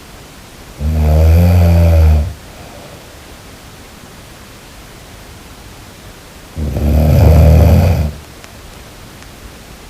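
Snoring: two long, low-pitched snores about six seconds apart, each lasting about a second and a half, over a steady hiss between breaths.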